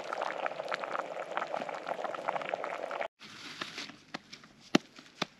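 Food cooking in a pot, bubbling and sizzling with many small crackles. About three seconds in it cuts off abruptly, and a few sharp taps follow over a quieter background.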